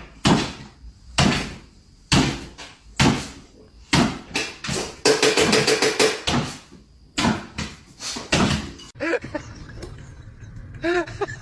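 Loud knocks or bangs, about one a second, with a quick rattling run of them about five seconds in. Near the end they stop and short high chirping sounds take over.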